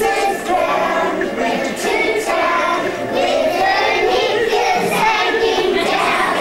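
A choir of four-year-old kindergarten children singing together, many high young voices at once.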